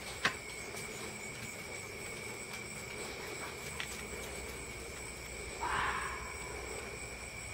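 A fox gives one short bark about six seconds in, over a steady high trill of night insects. A sharp click sounds right at the start.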